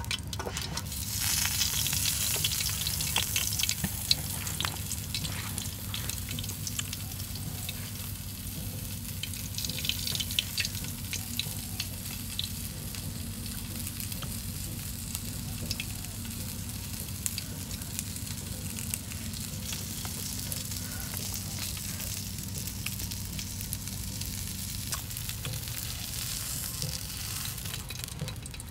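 Dried fish frying on a metal dish over a wood fire, a steady sizzle with scattered crackles, as a wooden stick stirs it. The sizzle is loudest in the first few seconds, then settles to an even level.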